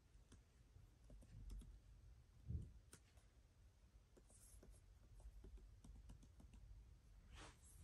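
Faint, irregular key clicks of typing on an M1 Pro MacBook Pro's built-in keyboard, entering a Wi-Fi password, with a soft low thump about two and a half seconds in.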